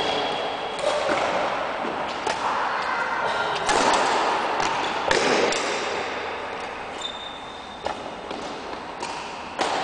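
Badminton rally: rackets striking the shuttlecock, about six sharp smacks one to two seconds apart, echoing in a large gym hall.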